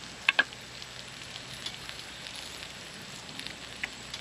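Pellets burning in a Solo Stove camp stove under bannock dough frying in an oiled skillet: a steady hiss with scattered small crackles. Two sharp clicks about a third of a second in.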